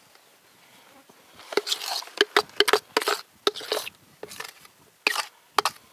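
Hands kneading and knocking up a large mound of damper dough on a flour-dusted metal bench: a run of irregular soft slaps and pats, starting about a second and a half in.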